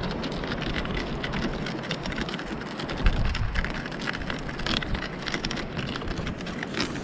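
Small shells crunching and crackling on the beach, dense little clicks over a steady rushing noise, with a heavier thump about three seconds in.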